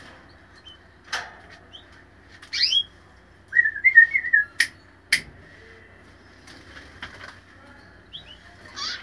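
Small cage birds in a flight aviary: several short rising chirps and one brief warbling call in the middle, with a few sharp clicks among them.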